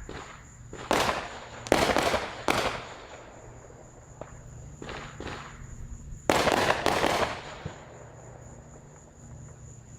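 Fireworks going off: a series of sharp bursts with crackling tails, loudest a couple of seconds in and again around six to seven seconds in.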